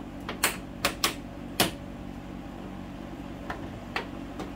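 Plastic trim removal tool prying a 2019 Ford F-150's front trim panel off its clips: a quick run of five sharp plastic clicks and snaps in the first couple of seconds, then a few fainter clicks near the end.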